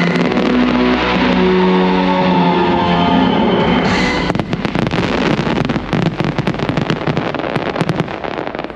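Fireworks show soundtrack music with held chords, which ends about four seconds in and gives way to a rapid, irregular run of firework bangs and crackles.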